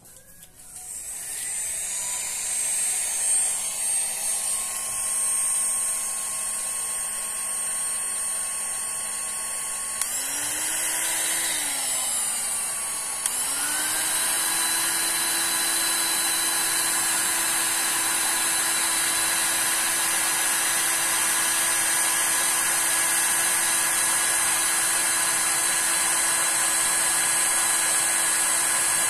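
Handheld heat gun's fan motor running with a steady whine, blowing hot air across wet resin. Its pitch wavers about ten seconds in, and after a click a few seconds later it runs at a higher pitch.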